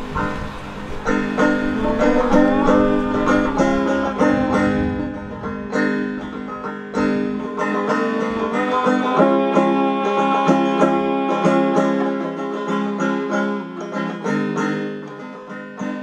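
Background music: a banjo picking a quick tune over a steady low accompaniment, coming in about a second in.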